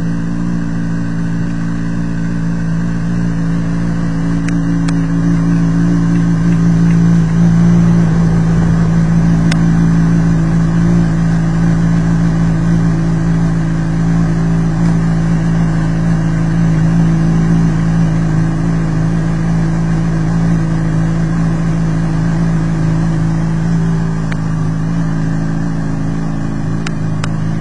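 2014 Honda CBR600RR's 599 cc liquid-cooled inline-four engine idling steadily.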